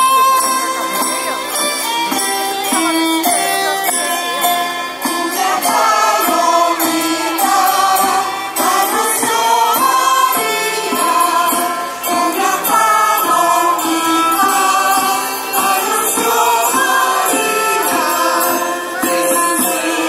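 Mixed choir singing a Christmas song, accompanied by acoustic guitars, with a light steady rhythmic beat.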